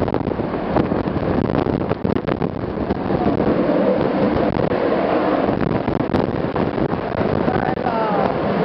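Dassault Mirage 2000 fighter's single SNECMA M53 turbofan in afterburner on its takeoff roll: a loud, steady rush of jet noise.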